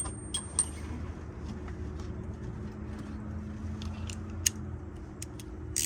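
A few light metallic clicks and taps of a 15 mm wrench or socket being fitted onto an engine bolt, over a steady low hum.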